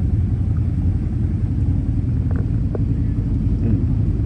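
A steady low rumble, with a few faint ticks about halfway through.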